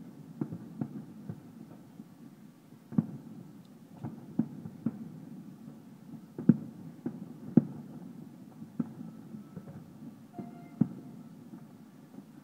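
Distant aerial fireworks going off: a dozen or so irregularly spaced, dull, muffled booms and pops, the loudest about halfway through.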